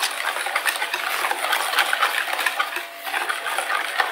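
Wire balloon whisk beaten by hand through cake batter in a plastic mixing bowl: rapid, steady clicking and rattling as the wires strike the bowl's sides.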